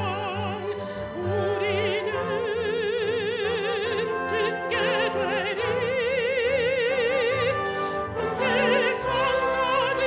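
A female soloist singing a sacred song in classical style, holding long notes with wide vibrato, over orchestral accompaniment.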